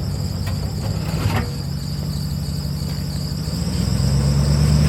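Dodge Ram pickup's engine running at low revs as the truck crawls over rocks, its rumble building to more throttle about three and a half seconds in as it climbs onto the rock it high-centres on. A steady high-pitched buzz runs over it throughout.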